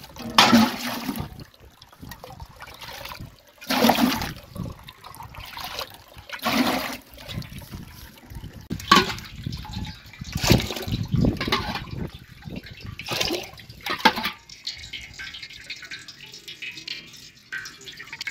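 Water poured from a steel bowl into a steel bucket, about eight splashing pours one after another, over a tap running in a thin stream into a steel basin. Near the end only the tap's trickle is left.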